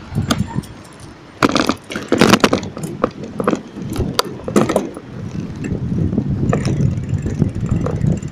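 Bicycle rattling and clattering in a run of sharp knocks for a few seconds, then a steadier low rumble of rolling tyres and wind.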